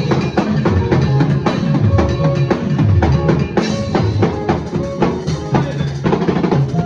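A drum kit played with a band: rapid snare and bass drum strokes over held notes from pitched instruments and a heavy low end.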